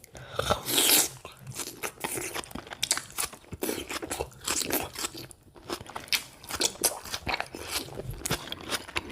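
Close-miked biting into and chewing of juicy raw tomato, with wet mouth clicks and smacks throughout. A louder bite comes about half a second in.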